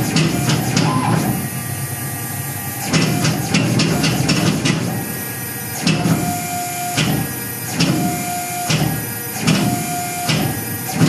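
Tormach PCNC 1100 CNC mill driving its Duality lathe attachment through a toolpath without a tool: the axis motors whine as the carriage traverses at a fast feed. It makes a repeating pattern, with a short steady tone about every second and a half in the second half.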